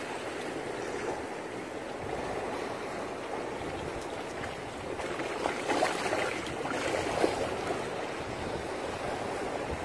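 Steady wash of sea water over rocks, with a few short faint rustles and knocks around the middle.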